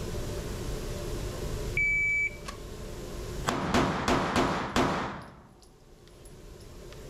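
A shot timer beeps once, a steady half-second tone. About 1.7 seconds later a pistol fires five shots about a third of a second apart, each echoing in the indoor range.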